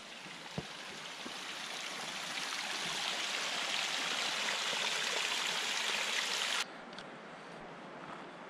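Rushing stream water, growing steadily louder for about six seconds, then cut off abruptly, leaving a quieter background with a few light ticks.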